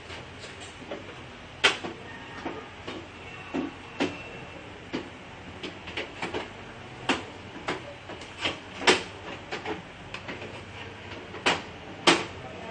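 Plastic parts of an Epson LQ-2190 dot matrix printer clicking and knocking as its paper guide and cover are fitted back into place by hand: about a dozen sharp, irregularly spaced clicks, the loudest about two seconds in, about nine seconds in and near the end.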